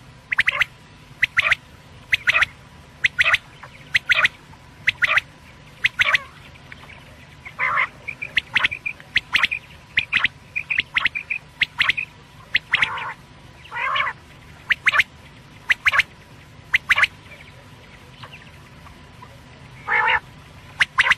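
Quail calling over and over: short, sharp calls at about one a second, with a few longer, rougher calls mixed in and a pause shortly before the end.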